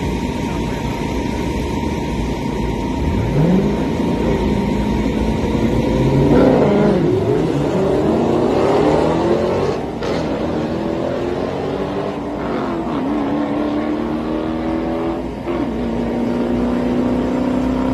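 Car engine running and revving over steady road noise, its pitch rising about three seconds in, then falling and climbing again several times.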